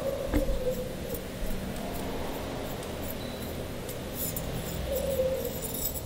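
A coil of stainless-steel fence wire being twisted backwards and slid off a steel rebar rod by hand: faint scraping of wire on the rod, with short squeaks near the start and again about five seconds in.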